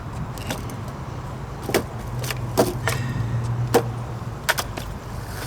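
Skateboard rolling on concrete with a low rumble, and several sharp clacks as the wheels come down during kick turns on a ramp.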